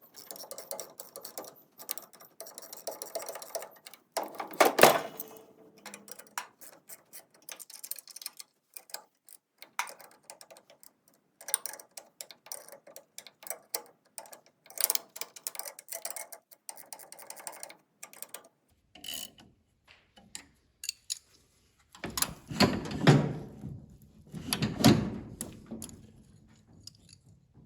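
Hand tools working the spring-loaded bolts of a New Holland 68 baler's knotter brake: scattered metallic clicks and ticks, a sharp clank about five seconds in, and two heavier knocks near the end.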